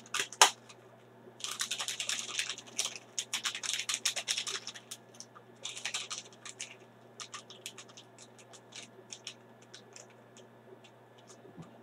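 Crinkling of a small plastic sachet of pH 6.86 buffer powder being worked open by hand: quick crackles, with two longer stretches of dense rustling in the first seven seconds, then only scattered clicks.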